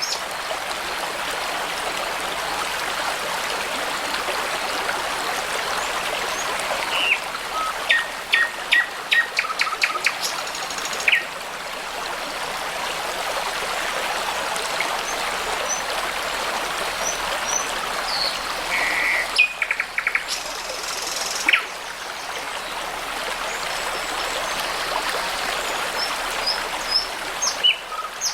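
A brook babbles steadily under songbirds calling. The birds give runs of quick repeated notes about a quarter of the way in and again past the middle, with scattered high, thin whistles and more calls near the end.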